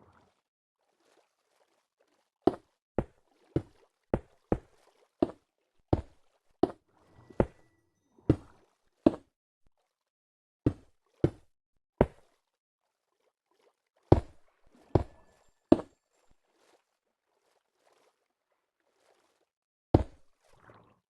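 A series of sharp knocks, in irregular runs of about one to two a second broken by pauses of a few seconds.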